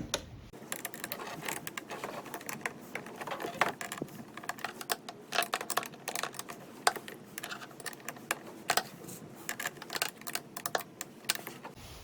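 Wrench working the 10 mm bolts and nuts that hold a snow blower's auger blade: irregular, sharp metallic clicks and taps, some in quick clusters.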